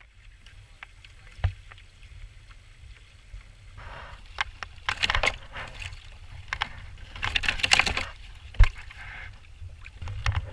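Knocks, clicks and rustling from a freshly caught tautog being handled on the plastic floor of a kayak, with a sharp knock about a second and a half in and another late on, and louder rustling spells in the middle. A steady low wind rumble on the microphone runs underneath.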